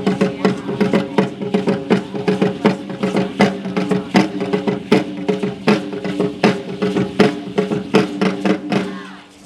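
Percussion-driven music for Aztec dance: quick, even, sharp beats over a steady held drone. The music fades out just before the end.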